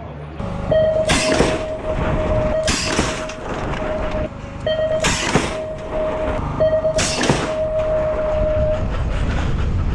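Mountain bike rolling on dirt, its rear hub freewheel buzzing in three long stretches with short breaks and wavering as it slows near the end. Gusts of wind hit the microphone four times.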